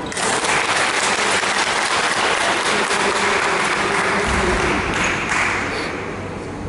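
Spectators clapping for a made free throw. The applause starts suddenly and dies down after about five seconds.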